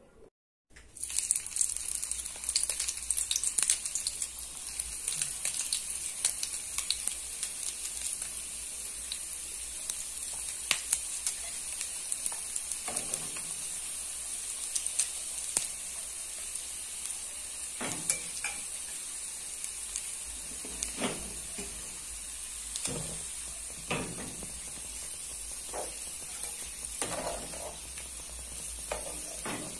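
Pastels (filled dough pastries) sizzling and crackling as they fry in hot oil in a small metal pan, beginning about a second in. Now and then, mostly in the second half, the slotted metal spatula clinks and scrapes against the pan.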